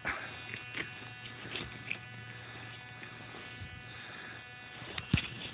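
Digging with a hand trowel in grassy soil: scattered scrapes and short clicks, with a sharp click about five seconds in. Under it runs a steady low electronic buzz.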